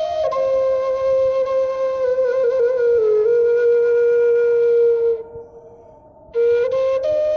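Wooden love flute (pimak) of waxed, impregnated aspen, tuned to F, playing a slow melody. A long held note steps slightly down, breaks off about five seconds in for a breath, then a new phrase begins.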